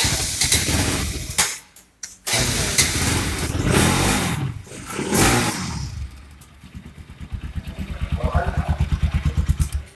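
Bajaj Pulsar NS200's single-cylinder engine running and being revved through its exhaust. It drops away about two seconds in and comes back suddenly, gets two rising revs, then settles into an evenly pulsing idle.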